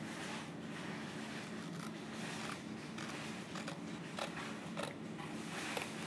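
Scissors cutting through a piece of thin cardboard: faint, uneven snips of the blades through the board.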